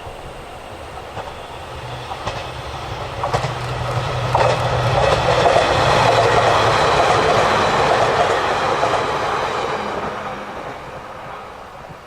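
JR East E721-series electric multiple unit passing over a level crossing: its wheels click over the rail joints as it approaches, then the running noise grows to a loud rush at its peak about halfway through and fades away near the end.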